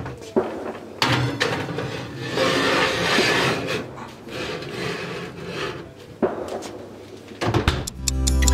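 Kitchen handling noise while the goose is prepared for roasting: rubbing and scraping with a few sharp knocks, the loudest scraping about three seconds in. Acoustic guitar music comes in near the end.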